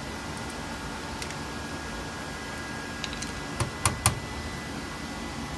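Small sharp metallic clicks and taps from a screwdriver and screw being worked out of an extended battery module's steel top cover: a single click about a second in, then a quick cluster between three and four seconds in. Under them runs a steady electrical hum with a faint high whine.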